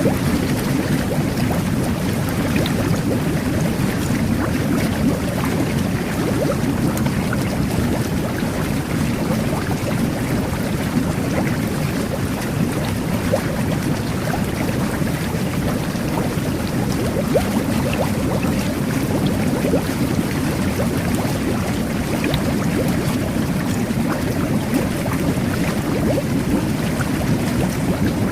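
Jet bath water churning and bubbling steadily under the jets, with a constant low rush and many small bubble pops.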